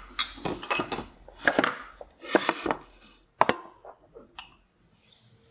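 Cooking utensils being handled while butter is cut and put into a small stainless steel saucepan: sharp clinks and knocks, one near the start and a loud one about three and a half seconds in, with short scraping sounds between.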